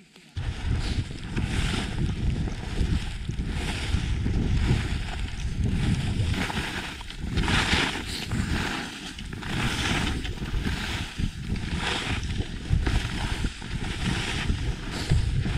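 Touring skis hissing through fresh snow on a downhill run, the hiss swelling and fading every second or so, under heavy wind rumble on the microphone. The sound starts abruptly just after the beginning.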